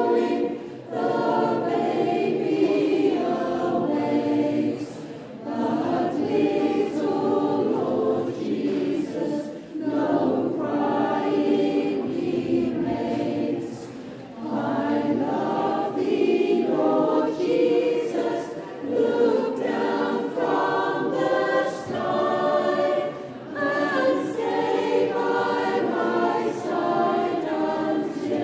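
Mixed choir of men's and women's voices singing together in phrases, with short breaks between phrases.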